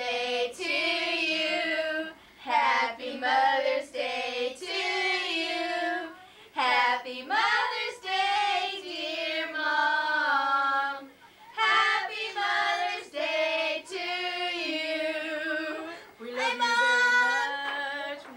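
Children singing a song, in sung phrases of held notes with short breaths between them.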